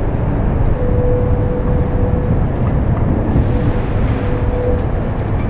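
Steady low rumble of heavy construction equipment running, with a steady mid-pitched tone that comes and goes in spells of a second or so, and a short hiss about three and a half seconds in.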